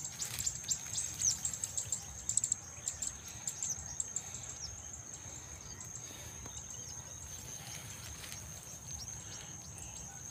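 Field ambience: a steady high-pitched insect drone, with birds chirping in quick short notes through the first few seconds before thinning out, over a faint low rumble.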